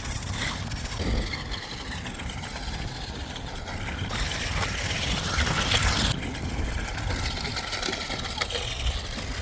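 Small electric motor of a toy RC monster truck whirring as the truck drives, with wind rumbling on the microphone. The motor grows louder about four seconds in and stops abruptly about two seconds later.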